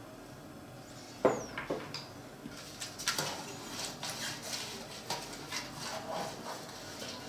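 A sharp knock about a second in, then a silicone pastry brush spreading olive oil over a round aluminium baking tray: an irregular run of light scrapes and clicks against the metal.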